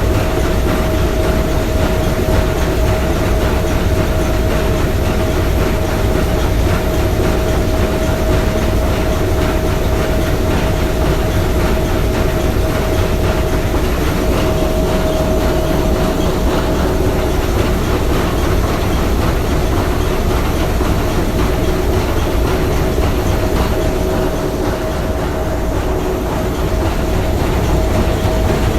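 A ship's three-cylinder triple-expansion steam engine running steadily: a loud, dense mechanical clatter with a steady hum running through it.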